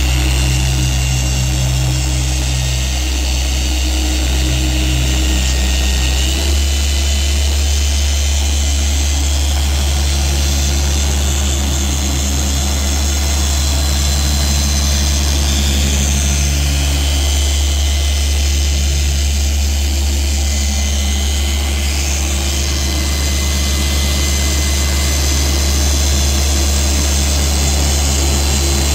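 RUPES dual-action polisher with a foam pad running steadily on car paint: a loud, even motor hum and whirr. Its pitch steps up slightly about six seconds in.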